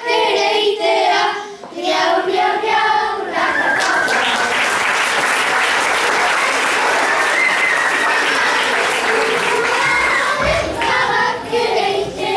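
A group of children singing the last line of a Basque bertso verse together, then steady audience applause for about eight seconds, with voices coming back in as it dies down near the end.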